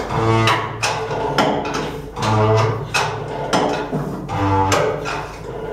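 Threaded steel stay tube being wound into a boiler tubeplate: the metal threads groan in pitched, creaking strokes about every two seconds, mixed with sharp metallic knocks.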